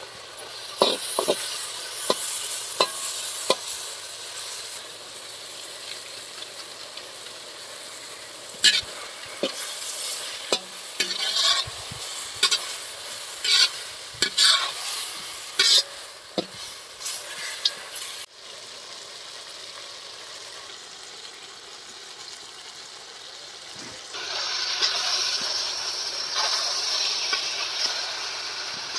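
Food sizzling and frying in a pan while a utensil stirs, scraping and knocking against the pan in the first half. The sizzling grows louder near the end.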